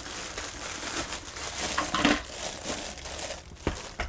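A clear plastic bag crinkling and rustling in uneven bursts as it is tugged off a juicer. A short knock comes near the end.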